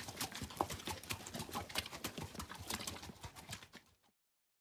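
Hooves of pack mules clip-clopping on a rocky trail as the mule string walks past, many uneven strikes. The sound cuts off about four seconds in.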